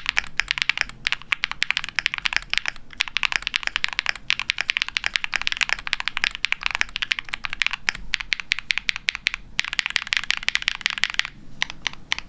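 Fast typing on a KBDfans Tofu60 mechanical keyboard with factory-lubed Huano Cherry Blossom linear switches, a POM plate, foam dampening and PBT keycaps: a rapid, dense stream of high-pitched clacks. The typing pauses briefly near the end.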